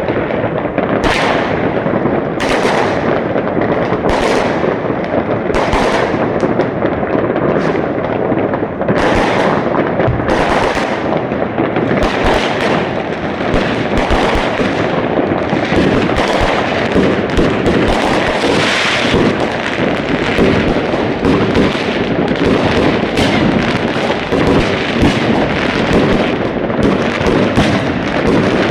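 Fireworks going off without a break: a dense stream of bangs and crackling firecrackers, growing thicker in the second half.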